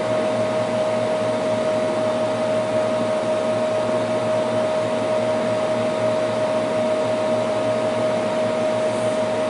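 Steady whir of running computer equipment's cooling fans, with a constant high hum tone over it.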